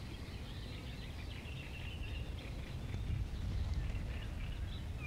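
Riverside ambience: faint birdsong with short chirps over a low, steady rumble.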